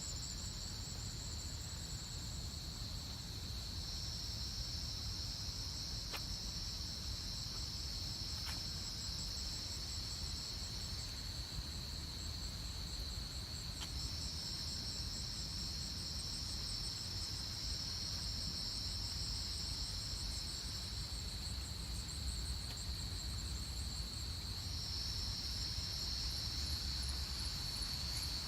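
Chorus of insects singing: several steady high-pitched trills overlap, one of them switching on and off in stretches of several seconds, with a faint rapid pulsing above them. A low rumble runs underneath.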